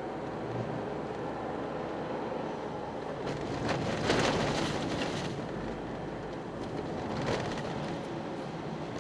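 Toyota GR Yaris being driven on Nankang ESSN-1 studless winter tyres over a wet road with melting snow: steady tyre and road noise with the engine running underneath. Two louder rushes of hiss come through, a longer one about four seconds in and a brief one about seven seconds in.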